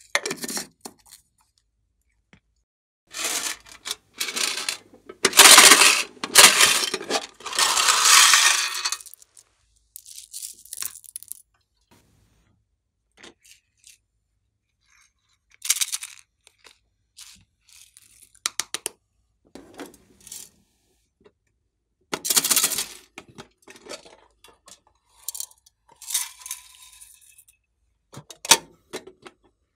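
Sprinkles and small plastic charms rattling in their containers and pattering into a glass dish of slime, in several bursts of rattling and clinking, the loudest a few seconds in. Near the end a box lid clicks open.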